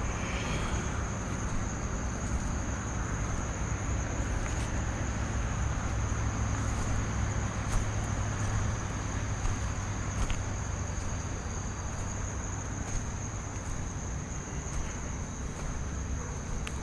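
Night insects, crickets, giving one steady high-pitched trill, over a low rumble and a few faint clicks.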